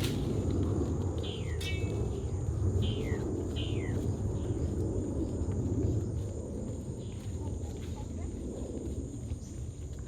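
Rainforest ambience: a steady high insect drone, a bird giving a few falling whistled calls in the first four seconds, over a continuous low rumbling noise.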